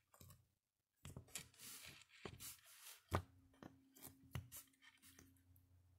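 Faint handling sounds of small squishy toys being picked up and set down on a tabletop: scattered light taps and brief rubbing, the sharpest tap about three seconds in, over a faint steady hum.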